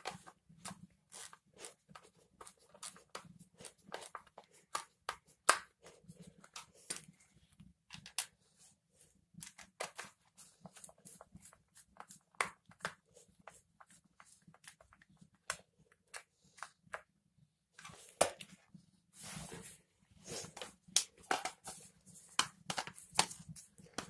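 Plastic housing of a handheld vacuum cleaner being handled and its self-tapping screws driven back in with a hand screwdriver: irregular small clicks and taps, with a few short scraping rustles in the later part.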